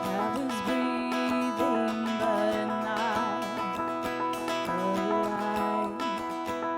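Church music: an acoustic guitar strumming chords, with a held melody line wavering over it that rises and falls.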